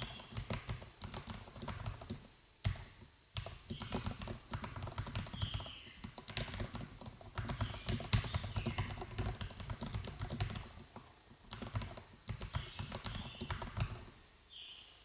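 Fast typing on a Poker Pro mechanical keyboard with lubed Cherry MX Red linear switches and Holee-modded, greased stabilizers: a dense run of deep-sounding keystrokes. It pauses briefly twice and stops near the end.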